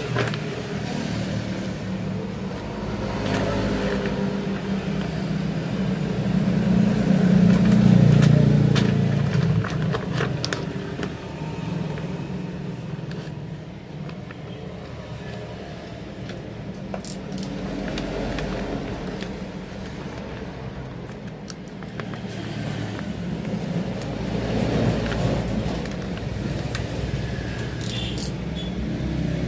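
Motor vehicle engines running and passing, a steady low hum that swells loudest about eight seconds in, with scattered crinkling of vinyl wrap film being handled and stretched.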